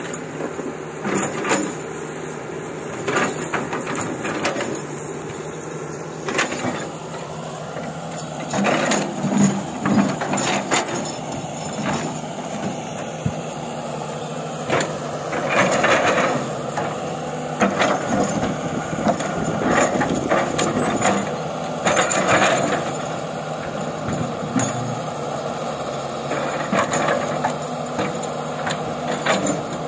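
An old excavator's diesel engine running steadily while it digs rock, with repeated clanks, knocks and scraping of the bucket against stone.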